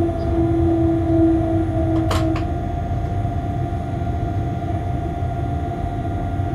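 Locomotive cab noise while running: a steady rumble with a constant hum. A pitched humming tone fades out about two seconds in, at the same moment as a sharp click.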